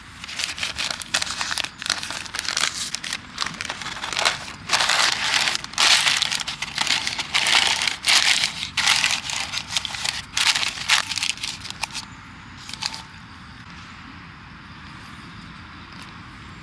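Crinkling and crumpling in irregular bursts, as of wrapping material being handled, which stops about twelve seconds in.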